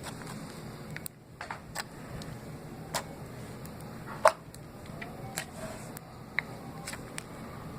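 Orbeez slime being handled, making irregular small sticky pops and clicks, about eight in all, the sharpest about four seconds in, over a steady low hum.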